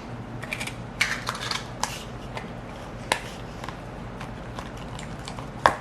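Slime and its plastic containers being handled: scattered sharp clicks and crackles, thickest around a second or two in, with a louder click about three seconds in and another near the end.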